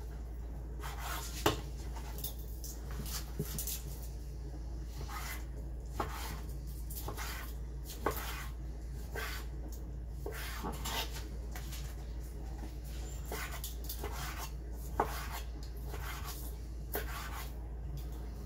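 Kitchen knife slicing raw chicken breast into strips on a wooden cutting board: irregular soft knocks of the blade reaching the board, with a few sharper taps among them.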